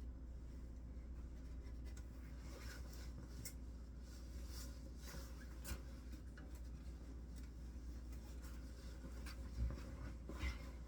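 Fabric cape rustling and brushing as it is dragged and arranged over an animatronic figure, with two soft thumps near the end and a low steady hum underneath.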